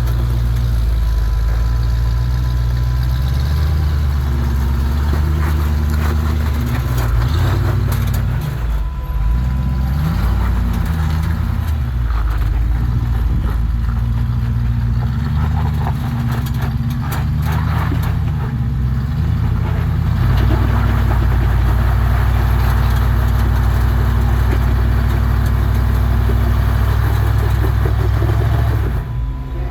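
Off-road truck engine running under load. Its pitch rises and falls several times in the middle as the throttle is worked, then holds steadier near the end.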